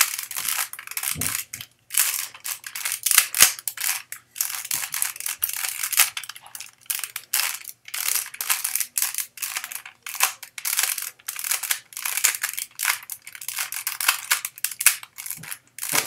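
A plastic 3x3x3 Rubik's cube being scrambled by hand: its layers are turned rapidly in a dense, continuous clacking rattle of plastic pieces, broken by a few short pauses.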